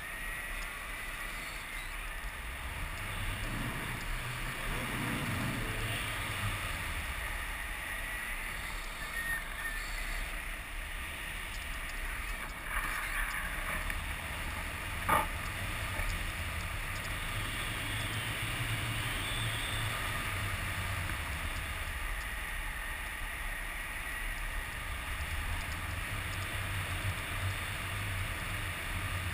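Steady wind rushing over the microphone of a camera held out in front of a tandem paraglider in flight, rumbling most at the low end. A single sharp click sounds about halfway through.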